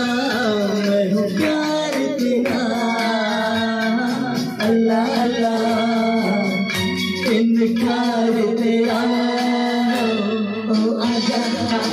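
A man singing into a microphone over instrumental backing music, in long held notes.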